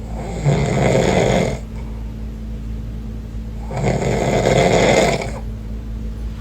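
A man snoring: two long snores, each over a second, about three seconds apart, over a steady low hum.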